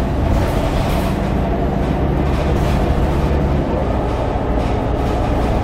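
Scania K230UB city bus's rear-mounted diesel engine running while the bus is under way, heard inside the passenger saloon as a steady drone with road noise. The engine note changes about two-thirds of the way through.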